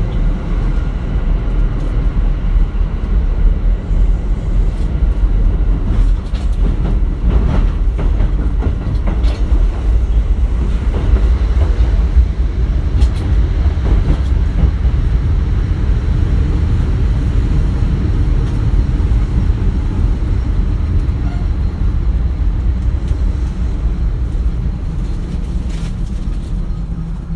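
Kintetsu 1420 series electric train running, heard from inside the car: the Mitsubishi GTO-VVVF traction drive and the wheels on the rails make a steady, loud, low running noise that eases off slightly near the end.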